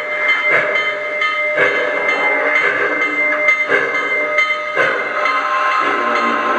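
Lionel Southern Pacific GS-2 O-scale model steam locomotive running slowly, its onboard sound system giving a steady steam hiss and hum with slow chuffs about once a second.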